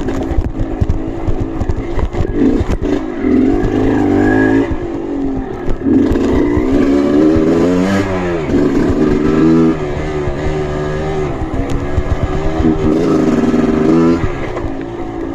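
Trail motorcycle engine revving up and down repeatedly under changing throttle, with scattered knocks and clatter.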